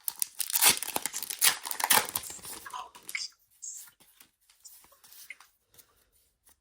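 Crinkling and tearing of a foil Pokémon booster pack wrapper being opened, dense for about three seconds, then a few faint clicks and rustles of handling.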